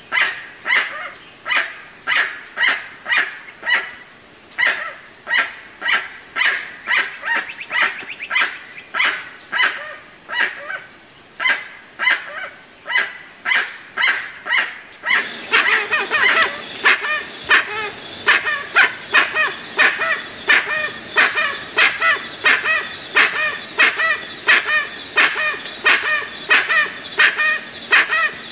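Two jacus (guans) calling, a long unbroken series of loud repeated calls about two a second. About halfway in, the calls grow louder and more crowded, over a little added hiss.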